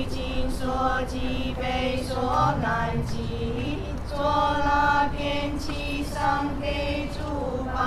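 Music with singing or chanting voices over a steady, held low note.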